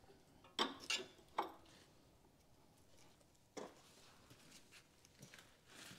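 A few sharp metallic clinks of a wrench against a steel hydraulic elbow fitting on a log splitter's gear pump as the fitting is tightened: three close together in the first second and a half, one more a couple of seconds later.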